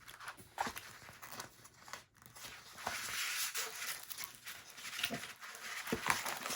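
Plastic packaging crinkling and rustling as a diamond painting kit is handled and unwrapped, with small clicks and taps throughout and a longer stretch of crinkling about midway.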